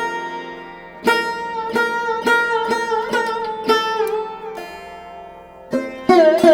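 Instrumental background music: a plucked string instrument plays a melody of separate ringing notes, some bent in pitch, with one note left to fade out before the playing picks up again near the end.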